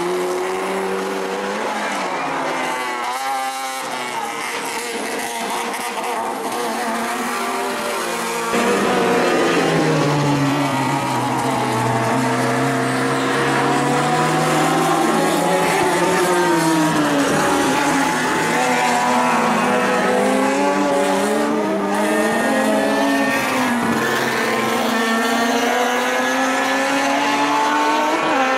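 Several race car engines at racing speed, their pitches overlapping as each rises through the gears and drops on lifting off. They grow louder about eight seconds in.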